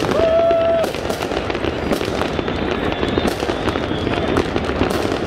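New Year's fireworks going off in a dense, continuous barrage of crackles and pops, with crowd voices underneath. A held high note sounds for under a second at the start.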